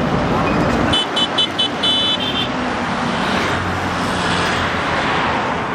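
Steady road traffic noise, with a tractor's diesel engine running close by that drops away about a second in. Just after, a vehicle horn gives a quick string of short, high-pitched toots.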